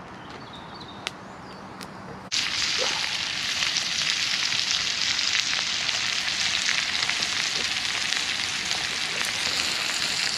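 Hot oil deep-frying food, a loud steady sizzle that starts suddenly about two seconds in, after a quiet stretch with a couple of clicks.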